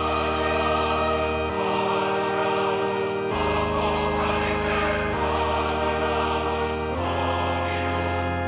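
Choral music: voices holding sustained chords that change about every two seconds, in a solemn hymn-like style.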